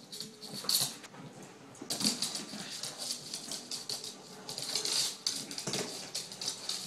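Chihuahua puppy playing with a ball on a hardwood floor: rapid, irregular clicking and skittering of claws and toy on the boards, louder in spells about two and five seconds in.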